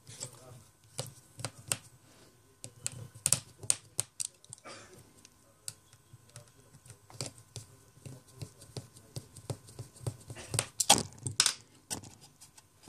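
Irregular light clicks and taps of a small precision screwdriver driving tiny screws into an opened iPhone 4S's metal frame, with a louder cluster of clicks near the end.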